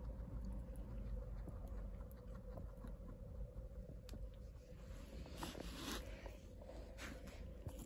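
Faint rustling and scraping of hay being picked up by hand off a carpet, with a few light clicks and a louder rustle about five seconds in, over a steady low hum.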